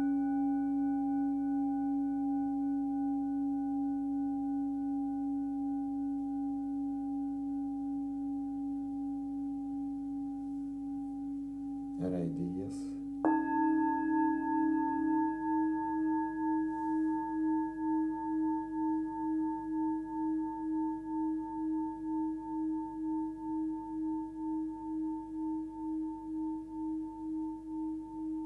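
Hand-forged singing bowls struck with a suede-headed mallet. The C-sharp bowl (about 279 Hz) rings and slowly fades. About 12 seconds in there is a brief handling knock, and then the D-sharp bowl (about 314 Hz) is struck and rings on with a slow pulsing waver, while the first bowl's tone stops a couple of seconds later.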